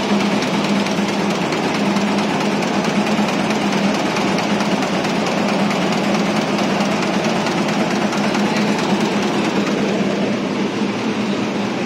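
Warp knitting machine running at speed: a loud, steady, rapid mechanical clatter from the needle bar and guide-bar mechanism, with a constant hum underneath.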